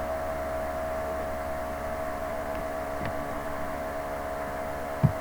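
Steady background hum with several fixed tones over a low hiss, with a faint click about three seconds in and a short low thump near the end.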